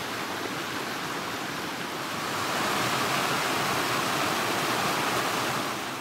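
A small rocky creek rushing and splashing over rocks in white rapids, a steady rush of water that grows louder about two and a half seconds in.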